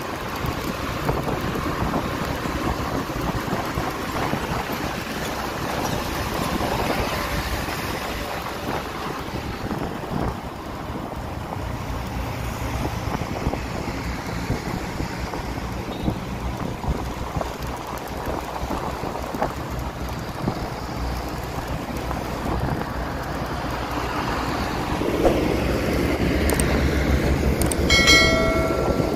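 Wind rushing over the microphone with road and engine noise from moving traffic, filmed from a moving vehicle. A heavier engine rumbles louder near the end, and a short high pitched tone sounds about a second before the end.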